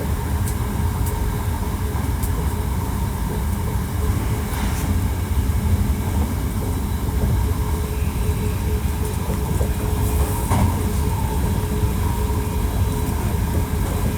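Hankyu 1300 series electric train running at a steady speed: a continuous rumble of wheels on rail with a steady tone held above it and a few faint clicks.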